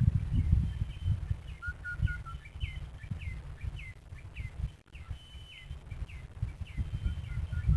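A bird calling over and over, short high notes that often drop in pitch at the end, about one or two a second. Underneath runs a low, uneven rumble of wind on the microphone.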